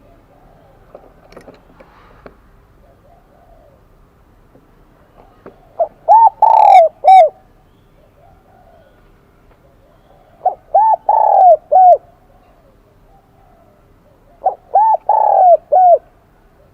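Spotted dove cooing: three phrases about four seconds apart, each a few short coos around one longer, louder middle coo. The bird has the high-pitched 'kim đồng' voice, used as a call to draw wild doves in.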